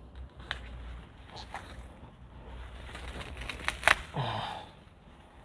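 Scattered crackles and clicks of potting soil and palm roots as an areca palm offshoot is pried and pulled loose from its clump, with one sharp snap about four seconds in. A short vocal sound follows right after the snap.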